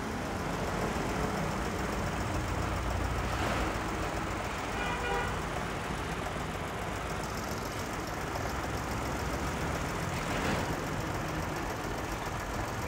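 Hyundai Grand i10's small petrol engine idling steadily under the open bonnet, a smooth even running sound.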